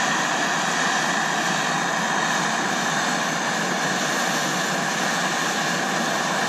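Two handheld gas torches burning steadily, an even rushing noise, as they heat seized, corroded bolts on an aluminum train-horn chamber and bell to break them loose.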